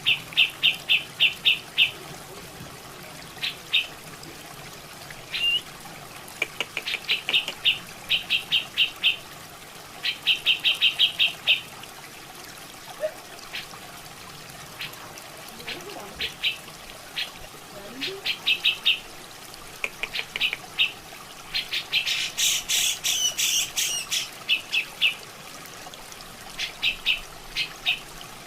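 Cucak jenggot (grey-cheeked bulbul) calling in repeated quick trains of sharp notes, about six to eight a second, each train lasting a second or two, over steadily running water. Around two-thirds of the way through comes a louder, harsher burst lasting about two seconds.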